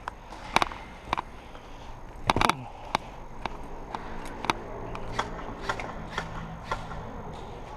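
Irregular crunching and crackling footsteps on the ground, with a few sharper clicks, as a player moves forward.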